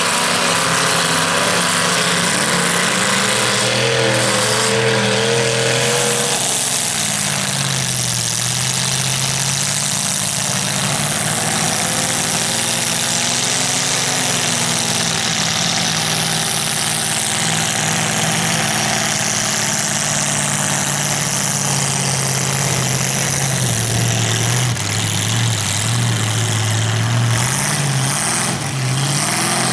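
Lifted mud trucks' engines running and revving as they drive through a mud pit, the pitch rising and falling with the throttle over a steady wash of noise.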